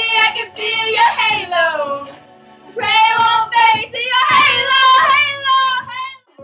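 Two girls singing along loudly in long, drawn-out notes, with a short break about a third of the way in.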